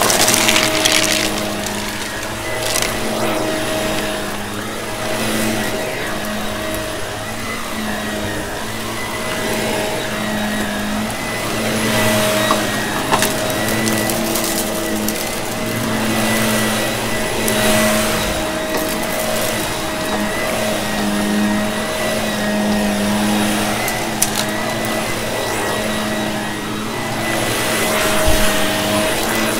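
Vacuum cleaner running steadily: a motor whine on a few fixed pitches over a rushing hiss, with scattered crackles and clicks.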